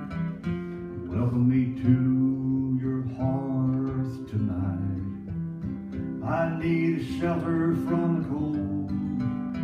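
Acoustic guitar playing a song, with a man's voice singing three phrases over it.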